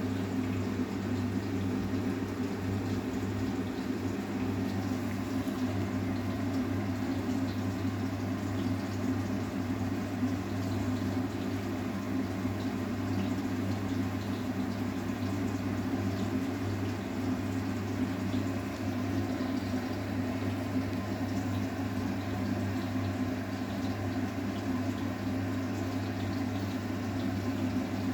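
Arçelik 9120M washing machine taking in water early in its wash cycle: a steady rush of water with a constant low hum.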